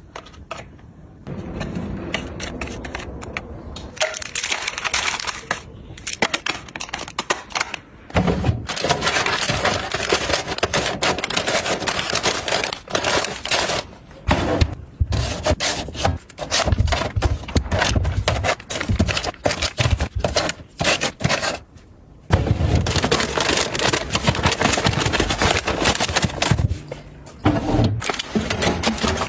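Plastic snack packets crinkling and rustling as they are handled and packed into storage boxes and drawers, with irregular small clicks and knocks of the plastic bins.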